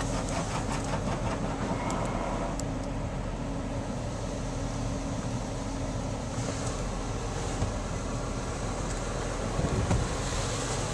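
Ryko Softgloss XS automatic car wash, heard from inside the car: high-pressure water spray beating on the body over a steady machinery hum. The spray pulses quickly for the first couple of seconds, then becomes a steadier hiss that swells near the end.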